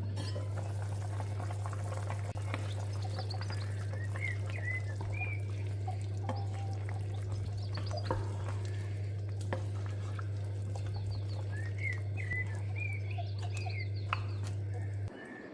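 A steady low hum with short chirping calls in two clusters, about four seconds in and again about twelve seconds in, and scattered faint clicks; the hum cuts off just before the end.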